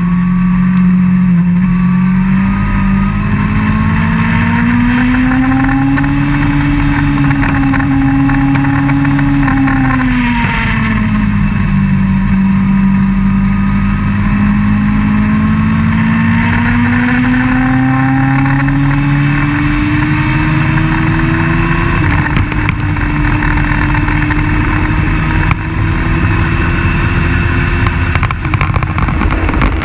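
Open-wheel race car's engine heard onboard at racing speed, its note climbing with the revs, dropping sharply about ten seconds in, then climbing slowly again through a long pull.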